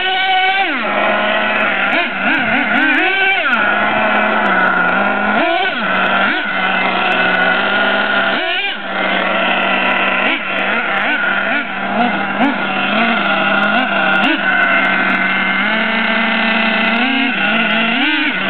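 Twin-engine nitro HPI Savage RC monster truck running on break-in, idling steadily with short light-throttle accelerations, its pitch rising and dropping back several times.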